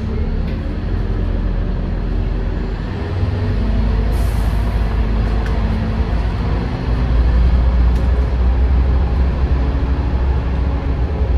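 Scania N230UD bus engine running under way, with a short hiss of compressed air about four seconds in; the engine grows louder from about seven seconds in.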